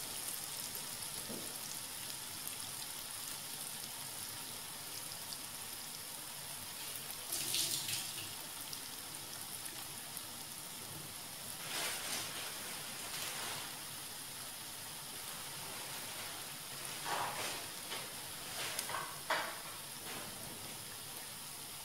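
Unniyappam batter frying in coconut oil in a non-stick unniyappam pan on low heat: a steady sizzle, with a few brief louder spits of oil now and then.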